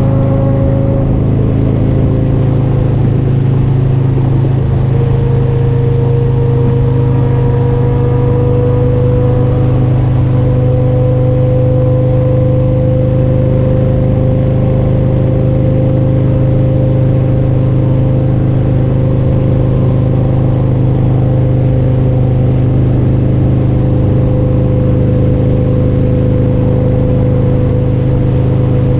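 Motorcycle engine running at a steady cruising speed, heard from on the bike, with a fainter whine that slowly rises in pitch.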